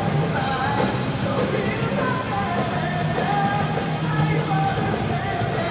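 Live rock band playing: drum kit and electric guitars with a singer half-singing, half-yelling into the microphone, heard as one continuous, steady mix.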